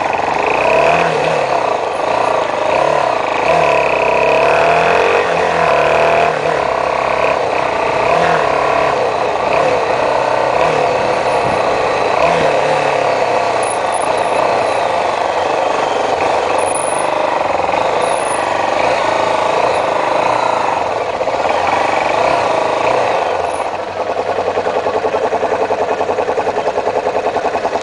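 Motorcycle engine running while riding through city traffic, with the noise of surrounding cars and wind. About three-quarters of the way through it settles into a steady, rapidly pulsing idle.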